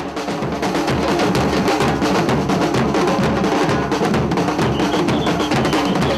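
Batucada street drum band playing a dense, steady carnival rhythm on large drums beaten with sticks.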